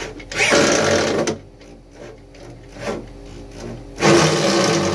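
Power drill running in two bursts against a wall: about a second of drilling shortly after the start, quieter in between, then a second burst near the end.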